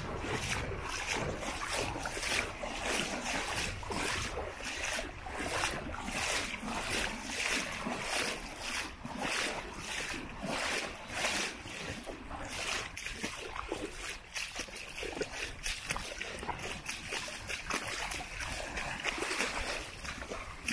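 Beach ambience: small waves lapping and splashing at the shore, with low wind rumble on the microphone at the start and again near the end.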